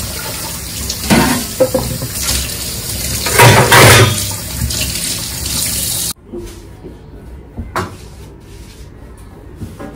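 Kitchen tap running into a sink while washed stainless-steel dishes clatter into a metal dish rack, loudest about three and a half seconds in as a steel tray is set down. The running water cuts off suddenly about six seconds in, leaving quieter sounds and a single knock near the end.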